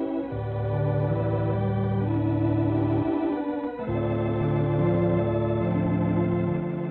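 Organ music: sustained chords over a bass line that steps between notes, with the bass dropping out briefly about three seconds in.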